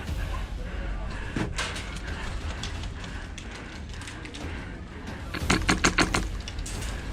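Airsoft guns firing: scattered single sharp cracks, then a fast, even string of shots, about eight a second, starting about five and a half seconds in.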